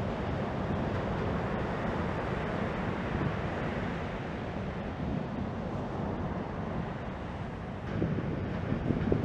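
Ocean surf breaking and washing along the beach, with wind rumbling on the microphone. The wash and wind get a little louder about eight seconds in.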